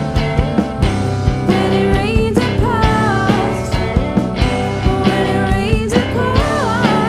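Rock band music with a steady drum beat, bass and guitars. A lead melody line slides in pitch about two to three seconds in and again near the end.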